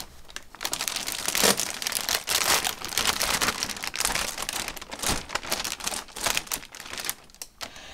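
Plastic anti-static shielding bag crinkling and rustling in irregular bursts as a computer motherboard is eased out of it by hand.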